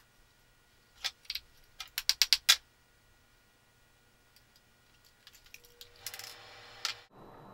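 Small hard-steel pump parts from a paint sprayer clinking against each other and the bench: a quick run of sharp metallic clicks about a second in, then quieter handling and one last click near the end.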